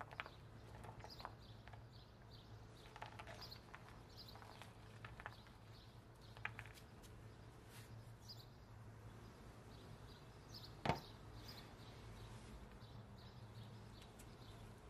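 Faint, scattered light taps as sliced red onion and chopped parsley are dropped onto baked flatbreads, over a low steady hum, with one sharper click near the end.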